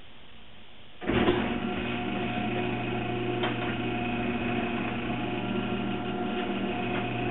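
Electric garage door opener starting up about a second in and running steadily as the overhead door rises, a mechanical hum with several steady tones.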